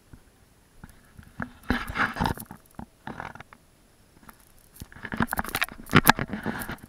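Tall grass and weeds rustling and swishing in irregular bursts, with crackling stems, as someone walks through them. There are two main bursts, about two seconds in and again around five to six seconds.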